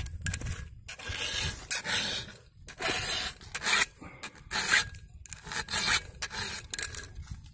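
Round file rasping across the cutter teeth of a chainsaw chain, sharpening it by hand in a series of separate strokes.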